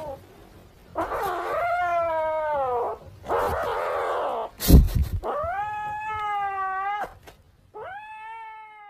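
Grey kitten caterwauling: three long, drawn-out yowls that glide in pitch and hold, with harsh growl-like stretches between them. A loud thump about five seconds in, with a couple of light clicks after it.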